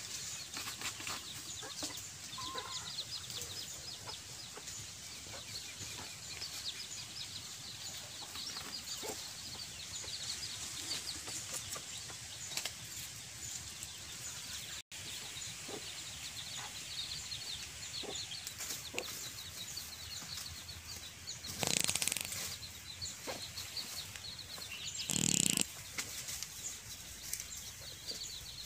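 Backyard chickens clucking amid small scratching sounds, with two short, loud flurries of wing flapping a few seconds apart near the end.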